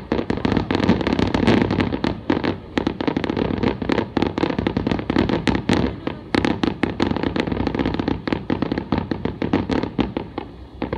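Aerial fireworks shells bursting in a rapid, unbroken barrage: many bangs and crackles a second over a continuous rumble.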